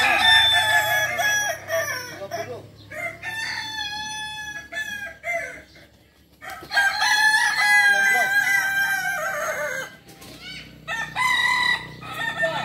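Several Kukuak Balenggek roosters crowing one after another, long crows that go in steps, each broken into several segments at different pitches, the tiered crow of this West Sumatran breed. There is a short lull about six seconds in before a long crow starts up again.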